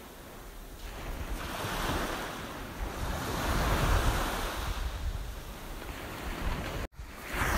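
Small waves washing onto a sandy beach, with wind buffeting the microphone. The surf and wind swell up about a second and a half in and ease off again, and the sound cuts out for an instant near the end.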